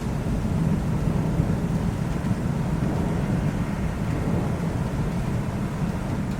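Thunderstorm: a long, low, steady rumble of thunder with a haze of rain over it.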